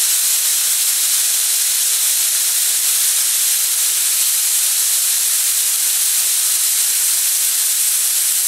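Compressed air hissing out of an air compressor's tank as its pressure is released: a loud, steady hiss.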